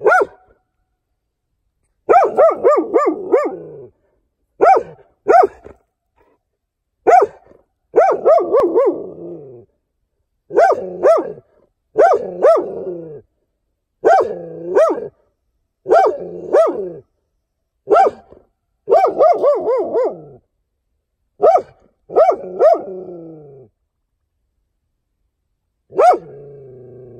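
A dog barking in quick runs of several barks each, the runs coming every second or two with short gaps between them.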